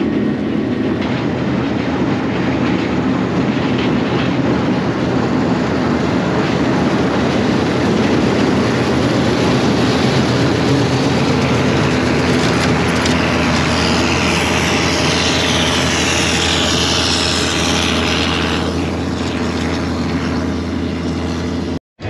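John Deere self-propelled swather running steadily while cutting milo, heard from inside the cab: a steady engine drone, with a hissing rush added for several seconds past the middle.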